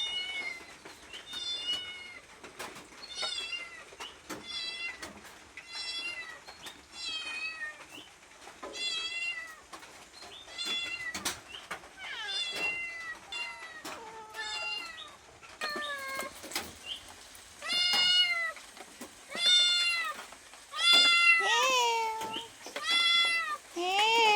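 Domestic cat meowing over and over to be fed, one meow about every second or so, the calls growing louder and longer in the last third.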